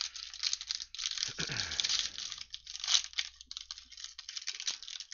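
Plastic wrapper of a trading-card fat pack crinkling and tearing as it is pulled open by hand, in quick irregular crackles, loudest about three seconds in.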